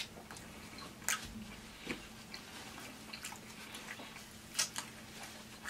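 Close-up chewing of fried chicken: wet mouth sounds broken by a handful of short, sharp smacks and crunches spread through the few seconds.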